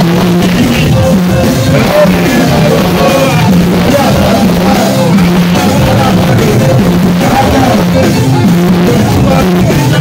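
Loud amplified live church music: a man sings into a microphone over hand drums and a steady stepping bass line.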